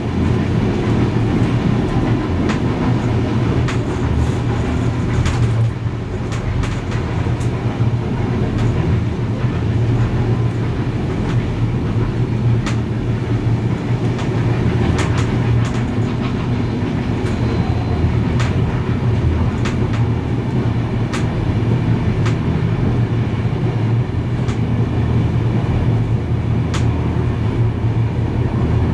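Train rolling along the track: a steady low rumble of wheels on rails with scattered sharp clicks.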